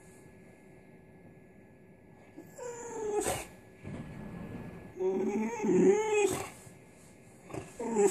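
White boxer dog whining at a cat in drawn-out, pitch-bending whines, begging for his ball back. The whines come in three goes: one about two and a half seconds in, a longer, louder one about five seconds in, and a short one at the end.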